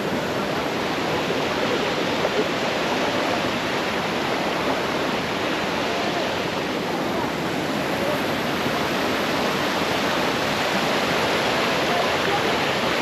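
Steady rushing of flowing water, an even, unbroken noise like a stream or small waterfall.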